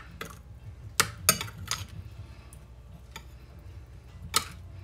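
Metal spoon stirring a soy-sauce mixture in a ceramic bowl, clinking sharply against the side of the bowl several times, over a steady low hum.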